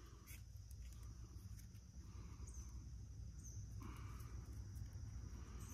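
Steady high drone of insects, with a few soft clicks and scratches of a knife working at a dry bracket fungus.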